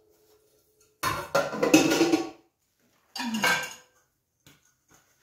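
Stainless steel pots and kitchenware clattering and clinking as they are lifted out of a dishwasher's racks. There is a longer burst about a second in and a shorter one about three seconds in.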